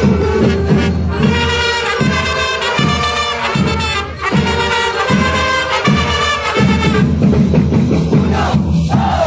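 A festival band playing a tune with brass to the fore. From about seven seconds in, crowd shouts and cheers rise over the music.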